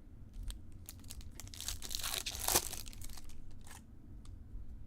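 Foil wrapper of a Topps Chrome trading-card pack torn open and crinkled, the main tear coming about a second and a half in and lasting about a second, with light clicks and rustles of cards being handled around it.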